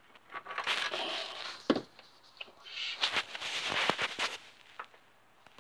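Rustling handling noise with a few sharp knocks and clicks, in two spells, as a handheld digital multimeter and its test leads are shifted about on the floor.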